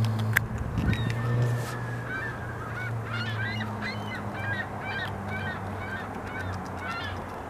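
Geese honking repeatedly, short calls about two a second starting about two seconds in, over a steady low rumble. A few sharp crunching clicks come about half a second in, from the beaver gnawing the log.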